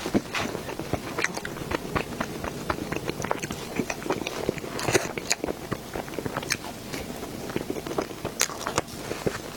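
Close-miked chewing and wet mouth sounds of someone eating cake, a dense run of small irregular clicks and smacks.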